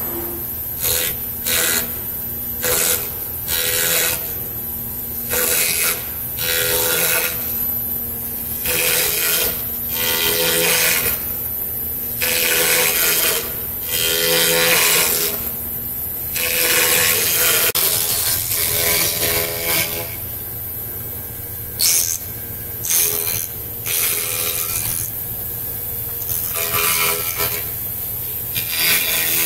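5-axis CNC spindle running a long end mill through a block of Japanese cedar, over a steady machine hum. The cutting comes and goes in repeated bursts of under a second to about two seconds as the tool sweeps in and out of the wood.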